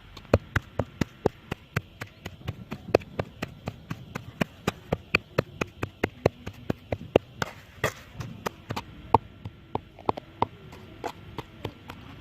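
Rapid chopping with a blade, about four sharp strokes a second, uneven in strength, which is typical of food being chopped on a board.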